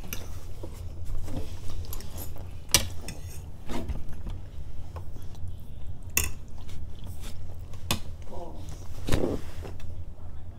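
Spaghetti being eaten with metal forks from plates: chewing and slurping, with scattered sharp clicks of forks on plates, over a steady low hum.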